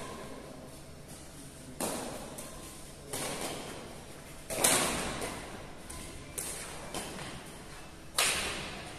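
Badminton rackets striking a shuttlecock back and forth in a rally, about six sharp hits a second or so apart, each echoing in a large hall. The loudest hit falls about halfway.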